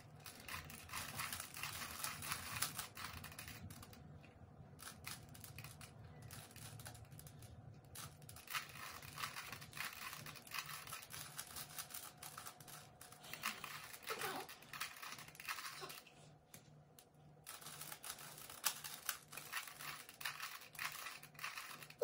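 Two plastic Rubik's cubes being turned quickly, a fast run of small clicks and rattles from the twisting layers, with a few short pauses.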